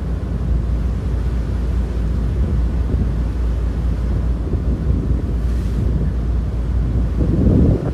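Wind buffeting the microphone on the open bow deck of a moving ferry: a steady low rumble, with a stronger gust near the end.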